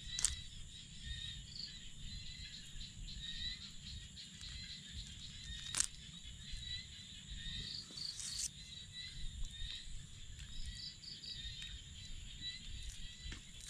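Outdoor rural ambience: a steady high insect drone with short, repeated chirping calls over a low rumble. Two sharp clicks, one just after the start and one about six seconds in.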